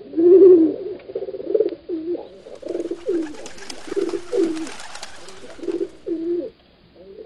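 Pigeons cooing, a run of low repeated coos one after another, the first the loudest. A faint rustle sits under the coos in the middle.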